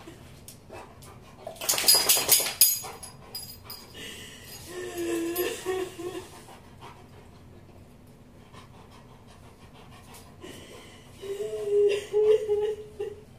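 A crying boy and a large black dog pressed against him. About two seconds in comes a loud burst of rapid panting or sniffing breaths. Whimpering, sobbing cries follow about five seconds in and again near the end.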